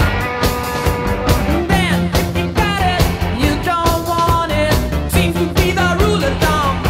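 Rock music with a steady drum beat and a melody line over it.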